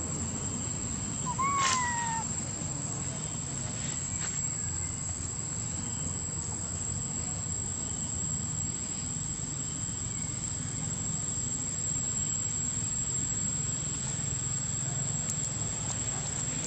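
A young macaque gives one short call about a second and a half in, rising briefly and then sliding down in pitch, over a steady low outdoor rumble and a thin, high, steady whine.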